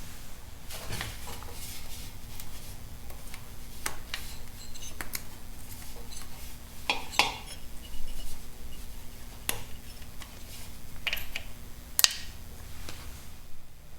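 Scattered metallic clinks and clicks of hand tools and small metal parts being handled, with the sharpest clinks about seven and twelve seconds in.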